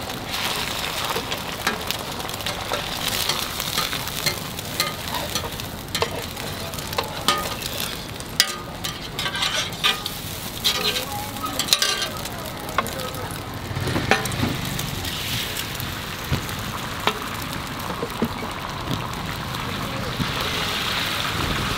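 Beaten egg sizzling on a hot flat-top griddle, with a slotted metal spatula scraping and tapping the griddle in a run of clicks midway. Near the end the sizzle grows louder as a fresh layer of raw egg spreads over the hot surface.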